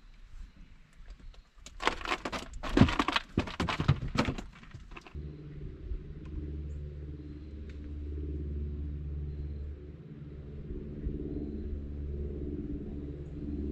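Loud clattering and knocking for a few seconds. About five seconds in, a steady low motor hum starts and keeps running.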